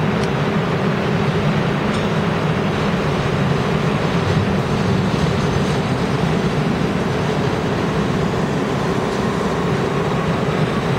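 New York City subway train pulling out of the station, the cars rumbling steadily over the track, with a faint rising motor whine in the last few seconds.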